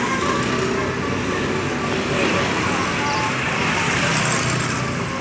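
Tour bus driving past amid road traffic: a steady rushing of engine and tyre noise that swells slightly in the middle.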